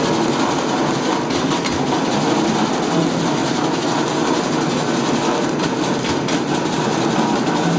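QTP1800F-L automatic pallet wrapping machine running, its turntable rotating the load as stretch film is wound on, giving a steady mechanical rattling hum. A few faint ticks come about a second in and again around six seconds.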